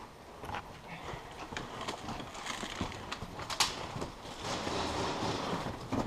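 Irregular knocks and clicks with rustling, and one sharp click about three and a half seconds in; the rustling grows louder in the second half.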